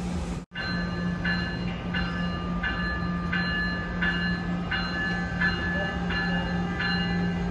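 NJ Transit electric locomotive's bell ringing, about one and a half strikes a second, starting about a second in, over a steady low hum from the standing train. The sound drops out for a moment about half a second in.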